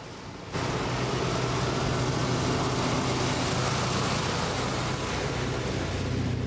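Heavy truck driving past close by: a steady engine drone with tyre and road noise, starting suddenly about half a second in.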